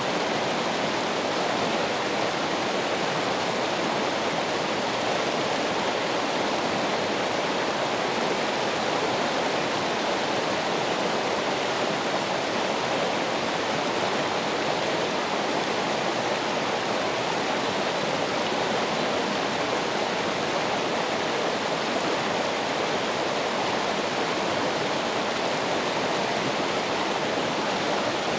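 Running water, a steady, unchanging rush with no distinct splashes or drips.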